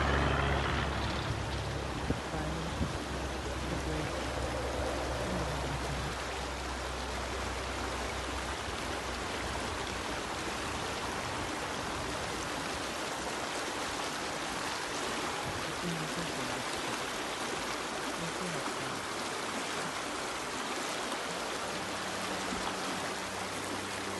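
Shallow mountain river running over rocks: a steady rush of flowing water. A low hum underneath fades out about eight seconds in, and two light knocks come about two seconds in.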